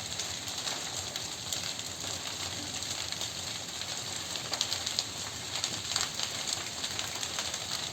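Prescribed fire burning through dead grass, leaves and pine undergrowth: a steady hiss with many scattered crackles and pops.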